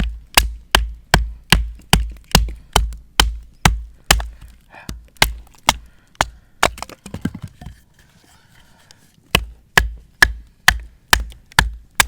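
Steady percussive beat of background music: sharp clicks over deep kick-drum thumps, about two and a half a second, with a short break about eight seconds in.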